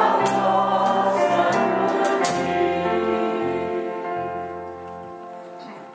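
Congregation singing the closing line of a hymn with drums and bass accompaniment, with a few cymbal strikes in the first two seconds. The final chord is held and fades away over the last few seconds.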